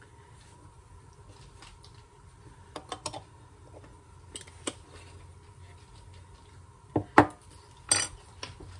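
Kitchen dishes and utensils clinking and knocking as pie-crust ingredients are handled: a few light knocks about three seconds in, two more near five seconds, and the loudest clatters about seven and eight seconds in.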